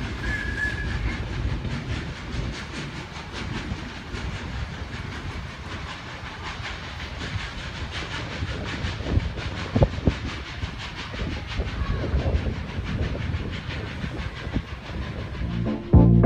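Steam locomotive pulling away with a train of passenger carriages: a rapid run of exhaust beats and wheels clattering on the rails. Music cuts in at the very end.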